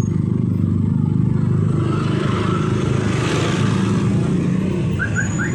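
Street traffic: a steady engine rumble, with a vehicle passing close by about three seconds in.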